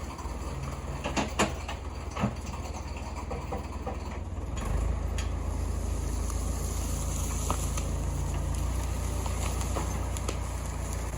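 An engine running steadily at a low pitch, with a few sharp knocks and clatters about a second in and again near two seconds.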